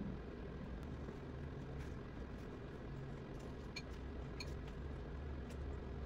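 Faint steady low rumble of background noise, with a few faint ticks about four seconds in.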